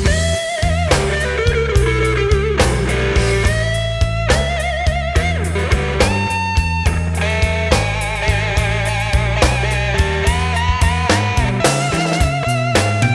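Rock music with a lead guitar playing long held notes with vibrato over steady drums and bass; no singing.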